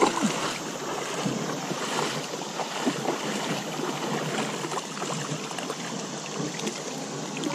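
Shallow river water running over a riffle below rapids, a steady rushing sound.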